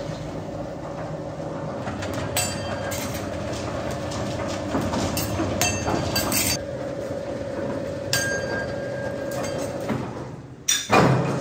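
Candy rope sizing machine running, its knurled metal rollers turning with a steady hum and rumble and occasional clinks. A single loud knock near the end.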